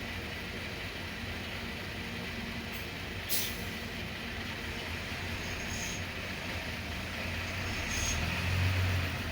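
Hyundai hydraulic excavator's diesel engine running steadily at work, with a sharp clank or hiss about three seconds in and brief high squeaks later. The engine note swells louder near the end as it takes load.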